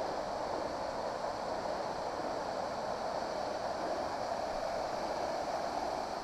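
Steady rushing of a creek flowing over rocks, an even wash of water noise with no breaks.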